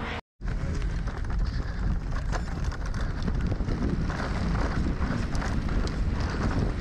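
Mountain bike descending a trail: wind buffeting the microphone over a steady low rumble, with many small clicks and rattles from the bike on rough ground. The sound cuts out for a split second just after the start.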